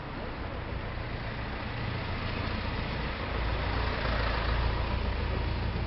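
Low engine rumble of a road vehicle, building and loudest about four to five seconds in, then easing, over steady street noise.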